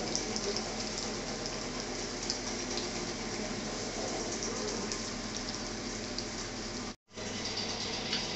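Electric tomato and chilli sauce pulping machine running steadily: a constant motor hum under a hissing, spattering wash of noise from the pulp being processed. The sound cuts out for an instant about seven seconds in.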